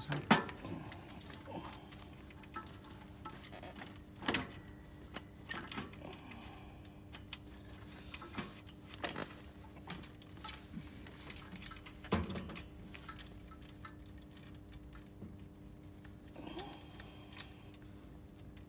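Metal parts clinking and knocking now and then as a forklift's inching lever and its pin are fitted by hand to the brake pedal linkage, the sharpest knock right at the start. A faint steady hum runs underneath.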